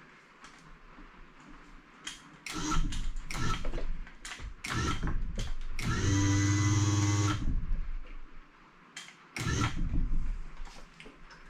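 Hoist gear and a heavy Delta wood lathe being lowered and nudged into position on a wooden stand: a string of knocks and clicks, then a steady pitched creak for about a second and a half, then a few more knocks.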